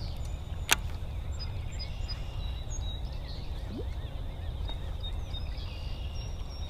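Outdoor ambience: a low steady rumble with faint high bird chirps, and one sharp click just under a second in.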